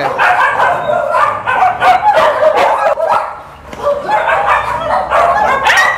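Many dogs barking and yipping at once, with a short lull a little past halfway.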